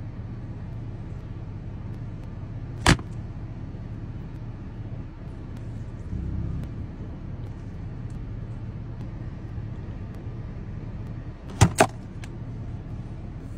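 Steady low hum of a car's cabin, broken by one sharp click about three seconds in and two quick plastic snaps near the end as the clear lid of a takeaway container is pried open.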